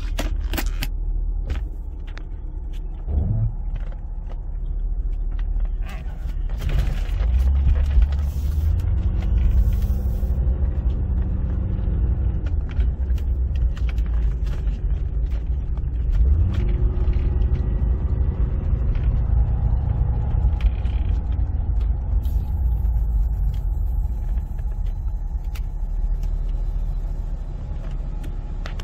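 1985 Chevrolet Corvette C4's 5.7-litre tuned-port-injected V8 running as the car pulls away and drives, heard from inside the cabin as a steady low rumble. The engine note rises a few times as the car accelerates through the automatic transmission's gears.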